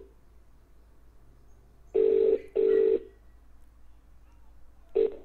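Phone ringback tone coming through a small portable speaker: the double ring of an Indian phone network, two short low buzzing tones with a brief gap, once about two seconds in. Another ring starts about five seconds in and breaks off after a moment as the call is picked up.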